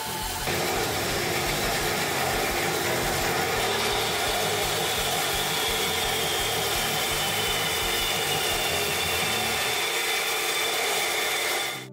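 Holzmann BS 712 TURN metal band saw running steadily, its blade cutting through a steel square tube. A high, thin whine joins in about a third of the way through, and the sound cuts off abruptly at the very end.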